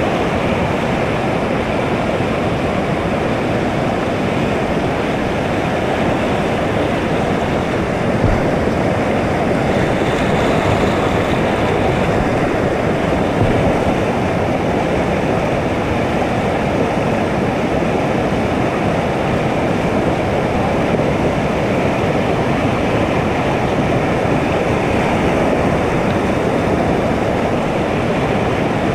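Whitewater rapids rushing steadily: a loud, even wash of water noise.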